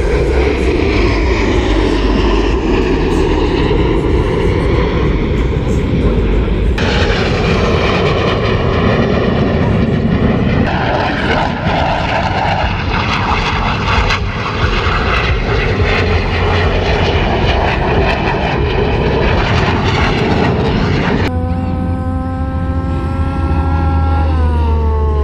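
Jet noise from Blue Angels F/A-18 Hornets flying past, with abrupt changes where the footage is cut. About 21 seconds in it changes to the steady drone of Fat Albert, the Blue Angels' C-130 Hercules with four turboprops, its tone falling in pitch as it passes overhead near the end.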